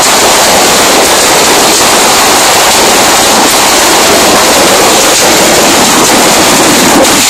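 Ground-level fireworks going off without a break: a steady, loud, hissing roar with no separate bangs standing out.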